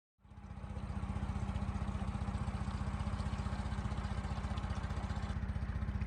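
Boat engine running steadily with a fast, even low throb. It comes in abruptly just after the start and settles within about a second.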